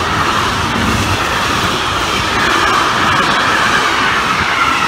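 A train passing close by at speed: a loud, steady rush of wheels on rail.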